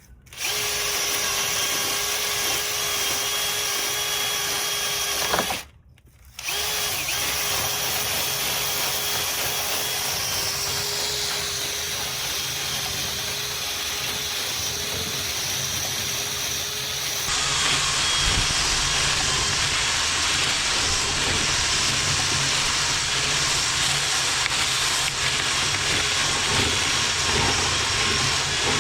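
Power drill spinning a rotary brush through a dryer vent duct, running steadily. It stops for about half a second some six seconds in, then runs on, and turns fuller and slightly louder a little past the middle.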